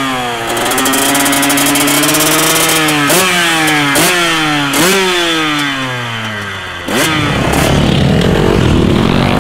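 KTM 125 two-stroke dirt bike engine being blipped: a held rev, then three sharp throttle stabs, the revs falling away after each. About seven seconds in it cuts abruptly to a denser mix of several dirt bike engines running at once.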